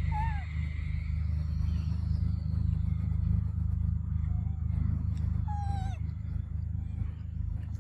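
Baby macaque giving short, high, falling coos: one right at the start, a faint one about four seconds in, and a longer one near six seconds. A steady low rumble runs underneath.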